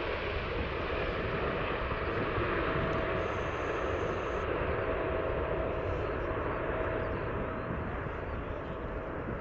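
Boeing 777-200ER's GE90 turbofan engines at takeoff thrust as the airliner climbs away: a steady jet rumble and roar whose higher hiss gradually fades, growing slightly quieter near the end.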